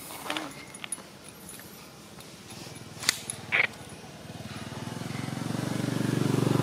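A motor vehicle's engine approaches, its low running sound rising steadily from about four seconds in until it is the loudest sound. Before that come a few brief chirps and clicks.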